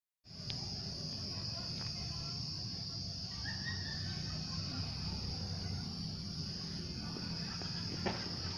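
Steady high-pitched chirring of insects over a low background rumble, cutting in abruptly a moment in, with a few sharp clicks near the end.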